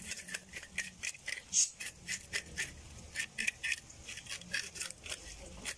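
Knife scraping the scales off a whole fish, in quick short strokes about five a second.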